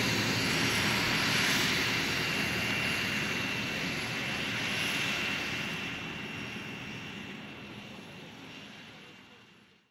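Twin PBS TP100 turboprop engines of an EM-11C Orka running, a steady high turbine whine over propeller noise, fading out gradually.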